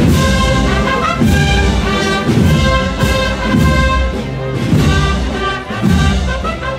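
Brass band playing a Spanish processional march (marcha procesional), with held brass chords over a steady bass-drum beat.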